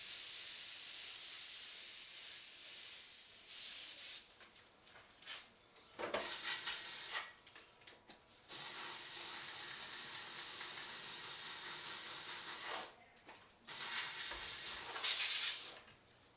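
Airbrush spraying paint, a steady high hiss of air that starts and stops in passes as the trigger is worked: long passes at the start and in the middle, short bursts between them, and a loudest burst near the end before it stops.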